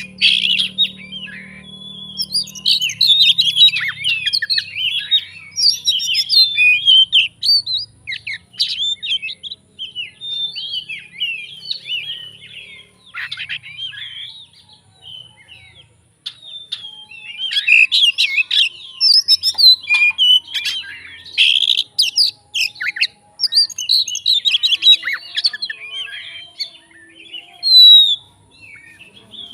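Oriental magpie-robin (kacer) singing a long, fast, varied song packed with mimicked phrases of other birds, in bursts with a short lull about halfway through.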